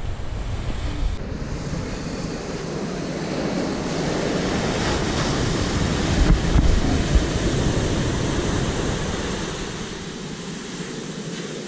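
Rough, stormy sea surf washing and breaking, with wind buffeting the microphone; the surf swells louder in the middle and eases near the end.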